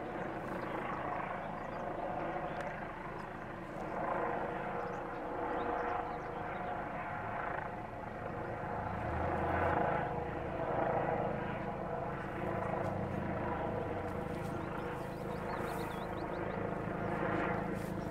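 Steady engine drone, an even hum that swells and eases slightly, with faint voices.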